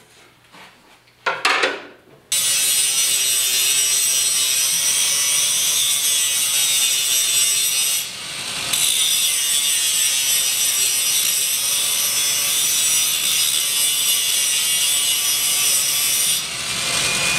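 Cordless angle grinder cutting a piece of 1/8-inch steel flat bar clamped in a vise: a loud, steady grinding whine that starts about two seconds in, eases off briefly about halfway through, and stops just before the end.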